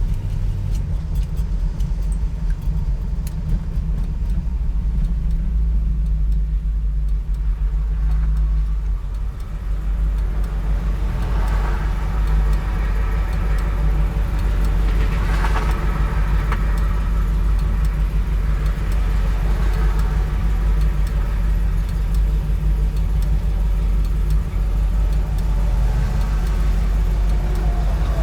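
1964 Studebaker Avanti's supercharged V8 running as the car is driven on the road, heard from inside the car: a steady low engine and road rumble that grows a little louder about ten seconds in.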